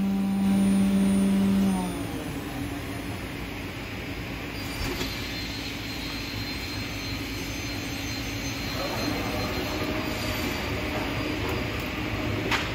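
Anderson Stratos WFD CNC router running a program. A strong, high spindle whine falls in pitch and dies away about two seconds in, leaving a steady mechanical hum of the machine running. A fainter whine comes back about nine seconds in.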